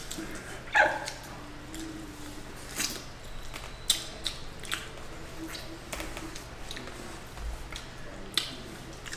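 Eating noises from a mukbang: scattered short wet smacks and clicks of people eating chicken wings and handling the food, over a faint steady low hum.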